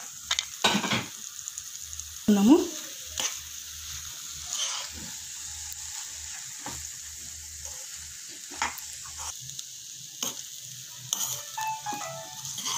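Steel spoon scraping and clicking against a kadai as cooked rice is mixed into a sizzling tomato masala, over a steady frying hiss.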